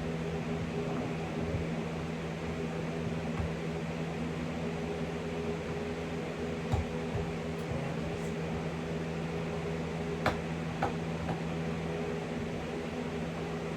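Electric fan running steadily: a constant whoosh with a low, even hum. A few faint clicks come in the second half.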